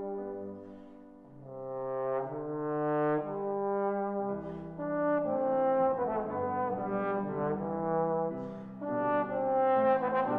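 Tenor trombone with F attachment playing a slow melody of held notes with piano accompaniment. It softens about a second in, then swells back up through a rising line of notes.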